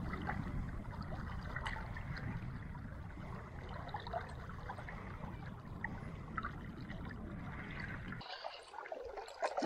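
River current flowing and trickling, over a steady low rumble that drops away about eight seconds in.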